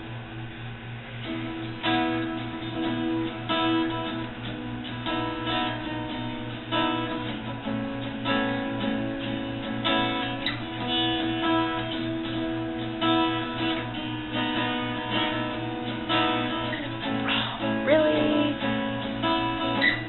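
Acoustic guitar strummed through a run of chords, instrumental with no singing, over a steady low hum.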